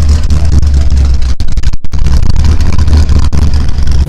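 A car engine running close by with a loud, steady low rumble. The sound cuts out briefly twice around the middle, from a badly connected microphone.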